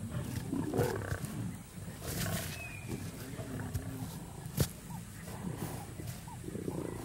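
Lionesses growling as they hold down and throttle a sable antelope bull at a kill. A single sharp click about four and a half seconds in.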